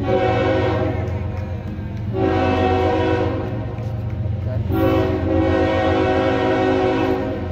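Air horn of a CSX ES44AH diesel locomotive sounding three long blasts with short breaks between them, the last the longest, over the steady low rumble of the approaching freight train.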